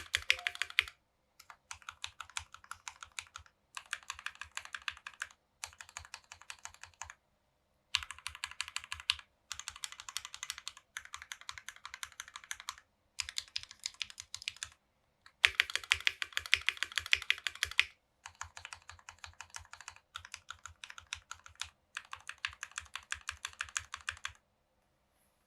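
Typing on a Tofu60 mechanical keyboard with lubed and filmed JWK Alpaca linear switches on a brass plate, under GMK keycaps; the brass plate gives the keystrokes a certain hardness. Runs of quick keystrokes are broken by short pauses, and the typing stops about a second before the end.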